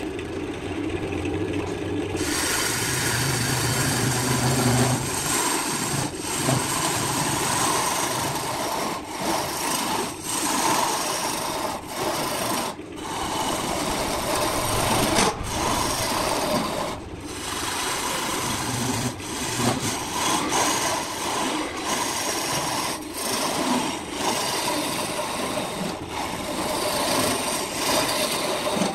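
Wood lathe running. About two seconds in, a gouge bites into the spinning wood and cuts on with a loud, continuous shaving noise, broken by a few brief pauses as the tool is eased off.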